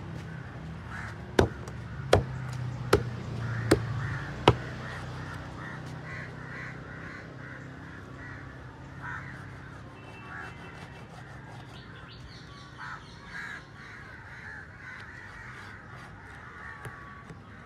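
A large fish-cutting knife strikes through a queenfish onto a wooden chopping board five times, sharp knocks a little under a second apart in the first few seconds. Birds call repeatedly throughout.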